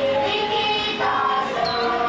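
Music with a choir of children's voices singing a song, holding long notes over the accompaniment.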